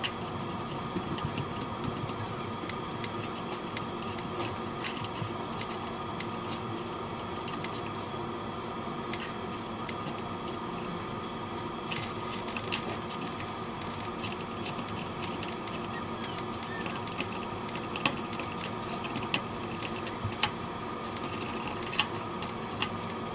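Metal spudger scraping leftover broken glass and adhesive off an iPod Touch 4th generation's frame, with scattered sharp clicks and scratches over a steady mechanical hum.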